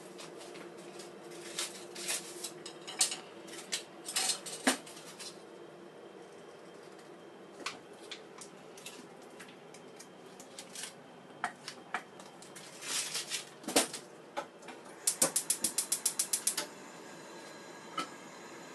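Foil butter wrapper crinkling and a knife cutting butter, then a gas stove burner's igniter clicking rapidly, about seven clicks a second for a second and a half, stopping once the burner lights.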